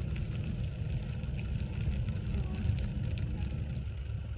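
Wind buffeting the microphone of a handheld phone on a moving bicycle, a steady low rumble, mixed with the hiss of the tyres rolling on asphalt.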